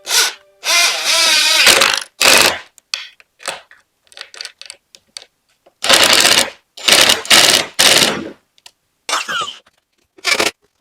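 Electric jigsaw with a thin scrolling blade cutting plywood in short runs, the blade rattling through the wood. It starts and stops about eight times, with silences in between.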